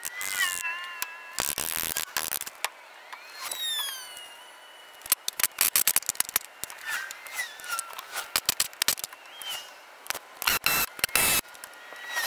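Metal tools and parts clinking and rattling as a truck's front-axle steering knuckle is taken apart by hand: many sharp clicks, with a couple of short, louder noisy bursts about half a second and two seconds in.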